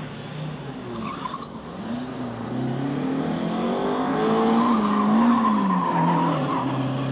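First-generation Honda CR-X's engine revving up and down as it is thrown through a gymkhana course, its pitch rising and falling again and again. The tyres squeal briefly about a second in, and the run grows loudest with a longer squeal around four to six seconds in.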